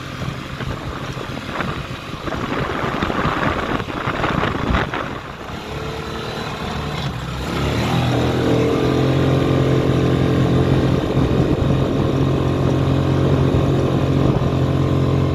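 GY6 150cc single-cylinder four-stroke engine of a small UTV running while it drives off on its first ride after a rebuild. For the first half the sound is rough and uneven, with knocks. From about halfway in, the engine settles into a steady, even drone that holds to the end.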